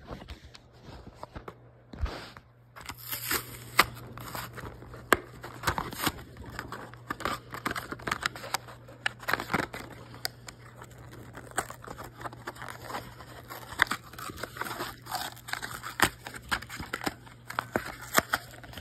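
A Hot Wheels blister pack being opened by hand: plastic crinkling, cardboard tearing and many irregular clicks and snaps.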